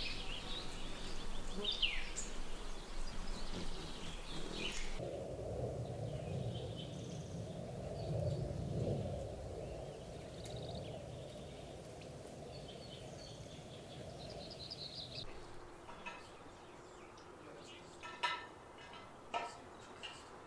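Wild birds calling, with quick downward-sweeping chirps in the first few seconds and fainter high calls after that. About five seconds in the sound changes abruptly to a low rushing noise under the calls, and it changes again near the end to a quieter background with a few sharp call notes.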